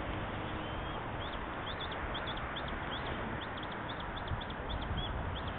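A small bird chirping in quick, high, repeated notes, several a second, starting about a second in, over a steady background hiss and rumble.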